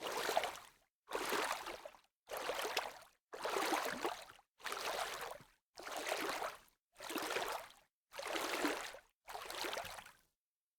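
Water splashing in nine short separate bursts, about one a second, each cut off by a moment of silence.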